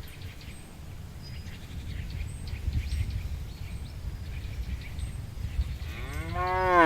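A cow moos once near the end, its pitch rising and then falling; this is the loudest sound. Before it there is a low rumbling noise with faint bird chirps.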